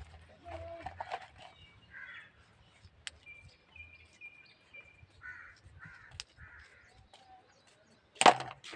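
Crows cawing several times, with a thin whistled bird note in between, and a loud sharp knock near the end.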